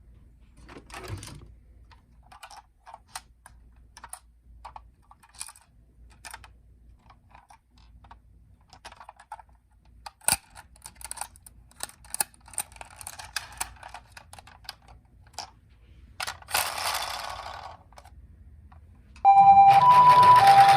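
Small plastic toy cars being handled and rattled: scattered light clicks and taps, with a short scraping rush a few seconds before the end. Near the end a toy ambulance's electronic two-tone 'pi-po' siren switches on loudly, alternating between two steady pitches.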